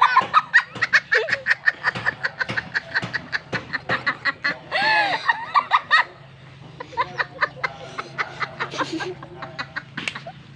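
A woman laughing hard in rapid bursts, about five a second, with a long high-pitched cry about five seconds in; the laughter then turns softer and breathier.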